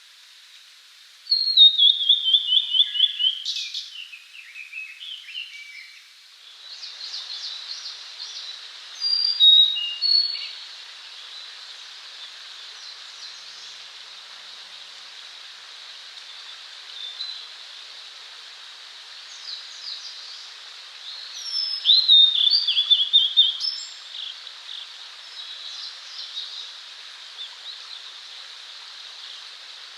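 A male blue-and-white flycatcher singing: a phrase of clear whistled notes stepping down in pitch just after a second in, and a similar phrase about 22 seconds in. Short chirps from other birds and a steady outdoor hiss fill the gaps.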